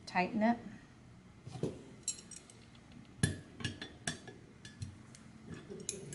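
Pliers clicking and clinking against brass lamp fittings as a nut is tightened onto the threaded rod: scattered sharp metallic clicks, the loudest about three seconds in.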